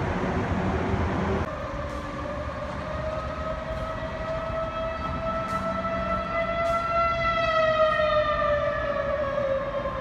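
Outdoor civil-defense warning siren wailing: one steady tone that slowly rises in pitch and then sinks again over the last few seconds. A low rumbling noise under it drops away about a second and a half in. The siren is a false alarm set off by a hack of the city's warning system.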